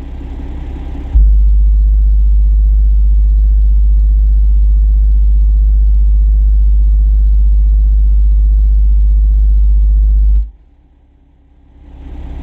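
A single 10-inch car-audio subwoofer in a semi truck's cab playing a loud, steady 51 Hz test tone for an SPL meter run. It starts suddenly about a second in, holds without change for about nine seconds, then cuts off.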